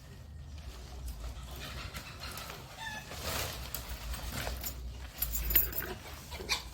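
Chickens clucking now and then, with a steady low wind rumble on the microphone and a few light clicks.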